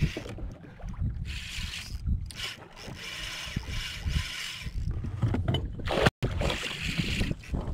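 Wind buffeting an action-camera microphone, with water slapping against a plastic kayak hull. The sound cuts out for an instant about six seconds in.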